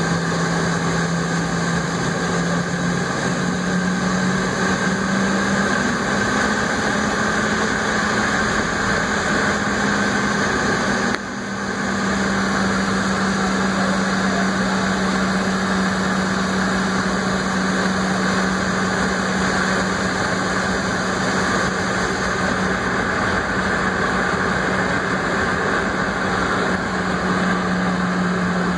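Jet airliner's engines running at taxi power, heard from inside the cabin: a steady hum and whine with a low drone that rises slightly about three seconds in. The sound dips briefly about eleven seconds in.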